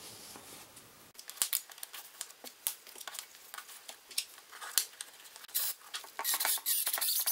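Plywood pieces and spacers clicking and clacking against each other as they are handled and stacked, in many separate light knocks, with a denser run of rattling near the end.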